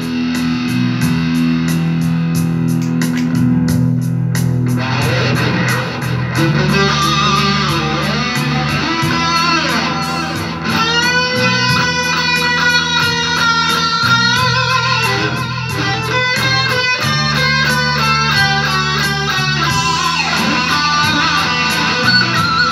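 Stratocaster-style electric guitar playing a lead line over a rock backing track with a steady beat and bass. From about six seconds in it holds long notes that bend and waver with vibrato.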